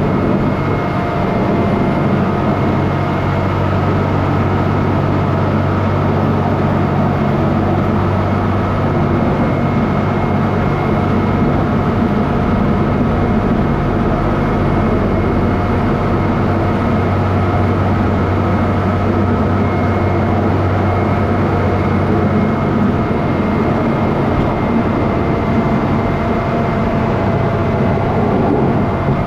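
A heavy vehicle engine running steadily under constant load, a low rumble with a steady whine over it.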